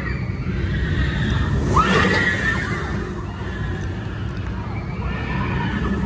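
Wind rumbling on the microphone, with a brief high, wavering voice-like call about two seconds in and fainter ones near the end.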